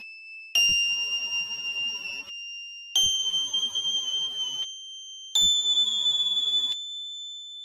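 A short cartoon-style sound clip played three times in a row, each time pitched higher, stepping up through the notes E7, G7 and A7. Each repeat starts sharply and lasts about a second and a half, with a steady high pure tone at the same pitch that carries on alone until the next repeat starts.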